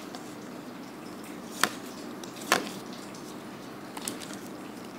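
Magic: The Gathering trading cards being handled and set down: two short, sharp taps a little under a second apart and a few faint ticks, over a low steady hiss.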